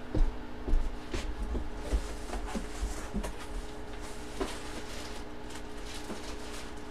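Objects being handled on a tabletop: scattered light knocks and clicks, loudest and most frequent in the first second or so, over a steady low electrical hum.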